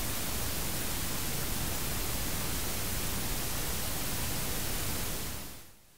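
Steady, even hiss like static, fading out about five and a half seconds in.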